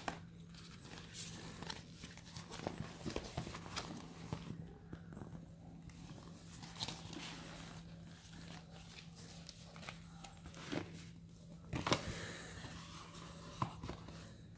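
Deflated vinyl beach balls being handled, the thin plastic crinkling and rustling in uneven bursts with small clicks. Near the end, small cardboard boxes are shuffled in a carton, giving a few louder knocks and scrapes.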